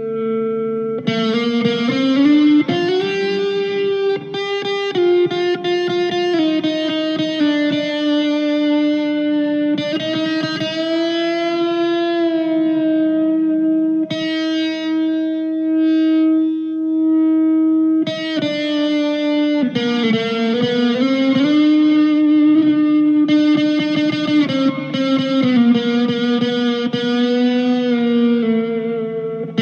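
PRS 245 electric guitar played through a Blackstar ID Core V2 amp, a single lead line with string bends and long sustained notes, one held for several seconds and slowly fading around the middle, on a lightly driven tone with effects.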